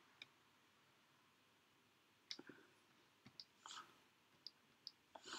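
Faint, scattered ticks and short scratches of a pen drawing strokes on paper, with near silence between them.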